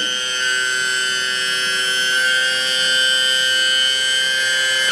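Electric hydraulic pump of a 1/20 metal RC mining dump truck (CAT 793D model) running with a steady high whine as it raises the dump bed. At the very end it stops, its pitch falling as it spins down.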